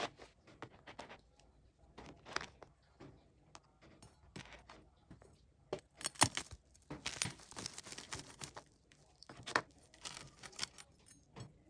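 Kitchen knife cutting through crisp, sugar-glazed brown sugar toast on a wooden cutting board: short crackling, crunching strokes, several in a row, the loudest a little past the middle.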